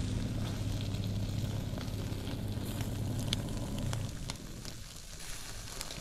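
Meat, sausages and peppers sizzling on a portable grill over hot embers, with scattered sharp crackles and pops. A low steady hum runs under the first four seconds, then fades.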